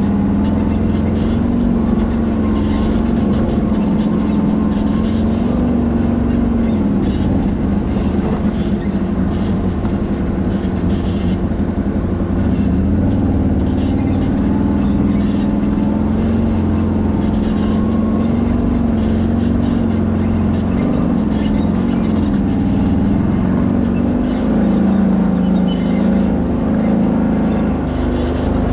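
Off-road vehicle's engine running steadily as it drives a dirt trail, its pitch rising and falling slightly with the throttle, with scattered brief knocks over the steady drone.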